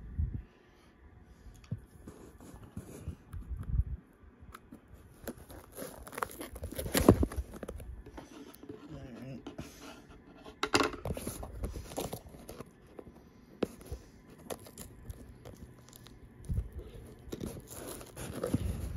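A cardboard toy box and its packaging being torn open and handled: irregular tearing, crinkling and scraping with small knocks. The loudest burst comes about seven seconds in, another near eleven.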